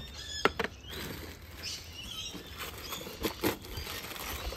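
Plastic wrapping crinkling and rustling as a packaged mailbox is handled and unwrapped, with a few sharp clicks about half a second in and again a little after three seconds.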